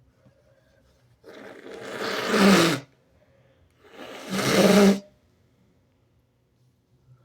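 A person sneezing harshly twice, each sneeze building to a loud blast; the second comes about two seconds after the first.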